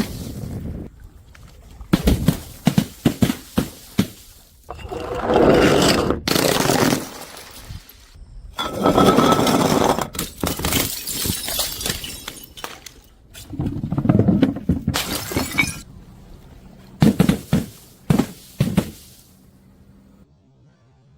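Glass bottles smashing again and again, each a burst of shattering glass followed by shards clinking and skittering, in about five separate bursts.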